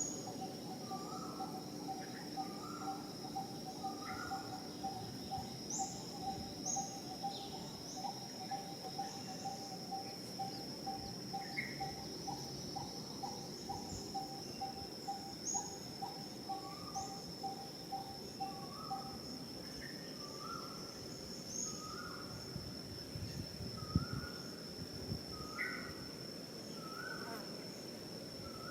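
Outdoor wildlife ambience: insects droning on one steady high note, with another animal calling in an even pulsing rhythm that stops about two-thirds of the way through and birds giving short repeated chirps. A couple of soft knocks come near the end.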